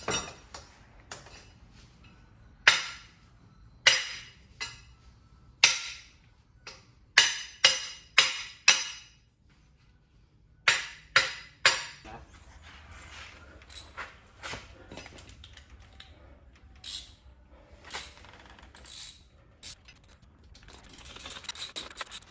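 Irregular sharp metallic clinks and clanks of hand tools and steel suspension parts being handled, in loose clusters with pauses between.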